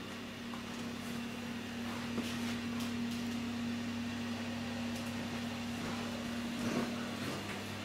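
A steady, low machine hum, like a fan or appliance running, with a few faint knocks. The hum eases near the end.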